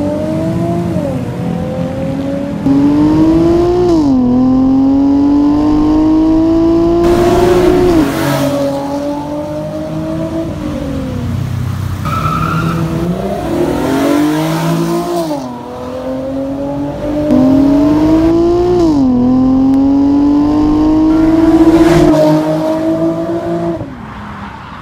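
Nissan 350Z's V6 with an aftermarket exhaust accelerating hard through the gears twice, the note climbing and dropping at each upshift.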